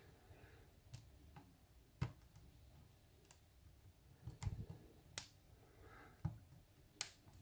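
Faint, irregular metallic clicks and ticks of a hook pick and tension wrench working the pins inside a pin-tumbler challenge lock cylinder, about one click a second with a short cluster around the middle.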